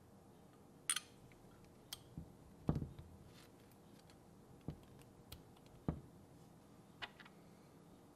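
A handful of irregular light clicks and taps of small plastic and metal parts being handled close up, with the loudest knock a little under three seconds in: a ball bearing and a hex driver being fitted into the plastic differential housing of an RC crawler axle.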